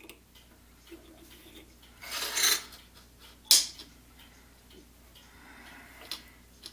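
Small steel parts being handled at a drill press that is not running: a short scrape about two seconds in, then a single sharp metallic click about a second later, as a small steel centering sleeve on the drill bit is set into a hinge's screw hole.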